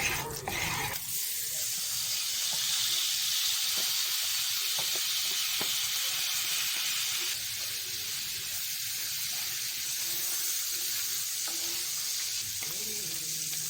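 Food sizzling as it fries in a hot pan, a steady hiss that eases a little about halfway through.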